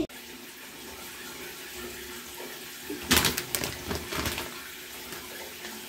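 Tap water running steadily into a sink. About three seconds in, a plastic bag of powdered detergent is handled and crinkles for about a second and a half.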